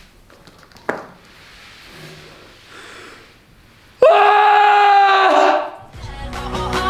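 A person's scream, loud and held at one pitch for about a second and a half, about four seconds in, after a quiet stretch with a single faint click about a second in.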